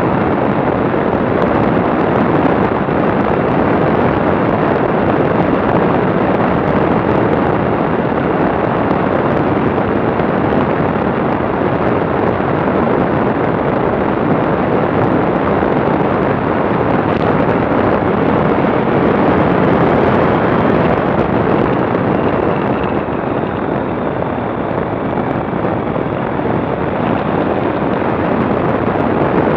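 Steady rush of wind on the microphone of a camera riding on a moving motorcycle, mixed with the motorcycle's engine and road noise.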